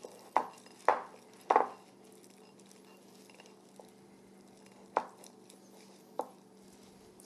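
A utensil stirring a cream cheese, green onion and dried cranberry mixture in a glass bowl, knocking against the bowl: three quick knocks in the first second and a half, then two more, spaced further apart.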